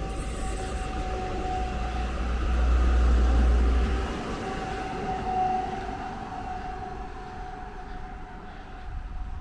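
Red electric passenger train passing close on the track beside the road, with a steady humming tone throughout. A car drives past at the same time, and the rumble swells to its loudest about three seconds in, then fades as both move away.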